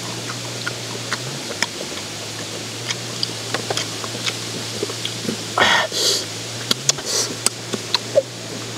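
Close-up eating sounds: snail shells clicking as they are handled, and two noisy sucking slurps about halfway through as the cooked snail meat is sucked out, over a steady low hum.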